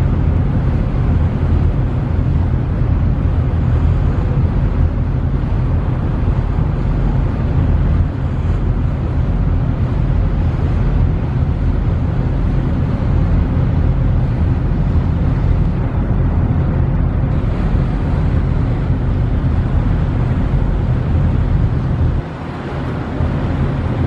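Steady low rumble of a ferry's engines heard on board, mixed with a constant rush of wind on the microphone and water. There is a brief dip in loudness near the end.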